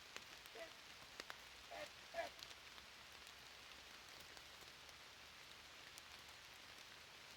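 Near silence: faint rain dripping, with a few light scattered ticks in the first couple of seconds.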